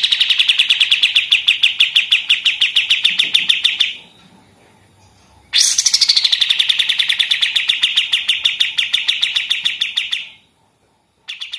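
Kapas tembak songbird singing its rapid machine-gun song: long runs of fast repeated high notes, each burst lasting about four seconds, with a short pause between them and a new burst starting near the end.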